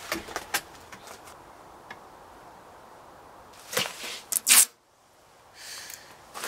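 Paper rustling and handling clicks as a letter is pushed into a wooden mailbox by a front door, with a sharp clatter about four and a half seconds in.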